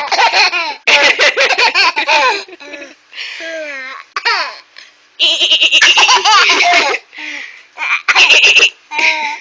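Baby laughing hard in repeated belly laughs, set off by a woman's imitation goat bleats that break in between them.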